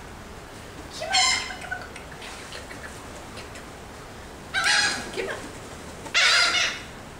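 Seagulls calling three times, harsh squawks each about half a second long; the last is the loudest.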